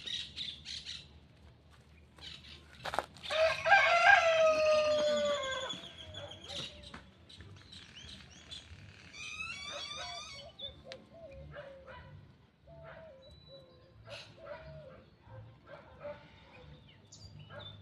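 A rooster crows once about three and a half seconds in, loud and drawn out, dropping in pitch at the end. A small bird chirps rapidly near the middle, and softer short clucking calls follow.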